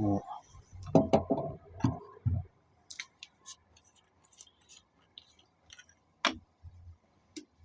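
Handling noise from a wooden-handled folding knife being oiled with raw linseed: a few dull knocks in the first two or three seconds, then scattered light clicks and ticks.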